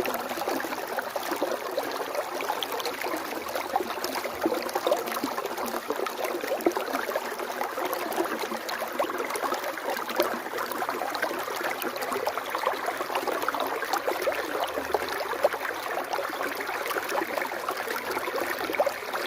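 Water flowing steadily in a stream, an even rush dense with small splashes.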